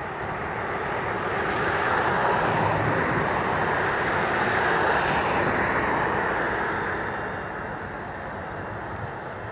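A broad rushing engine noise that swells over a couple of seconds and fades away again, as of something passing, over the low rumble of an idling diesel locomotive.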